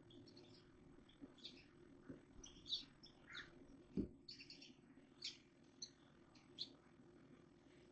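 Small birds chirping in short, scattered high calls, with a single thump about four seconds in.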